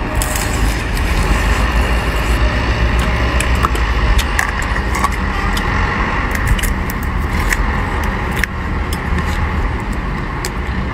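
Crab shells cracking and crunching as they are bitten and pulled apart by hand, scattered sharp clicks over a steady low rumble of outdoor background noise.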